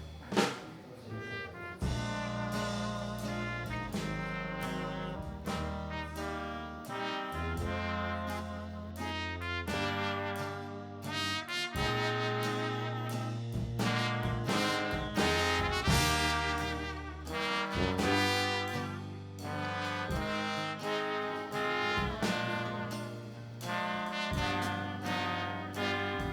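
Instrumental jazz-style background music, with brass playing the melody over a bass line.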